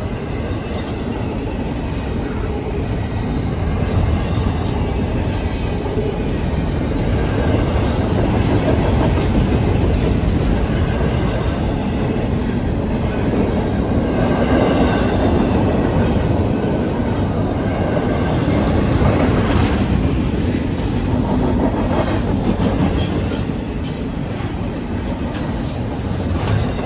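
Double-stack intermodal freight train's container well cars rolling past at close range: a steady rumble of steel wheels on rail with clickety-clack over the rail joints, a little louder through the middle.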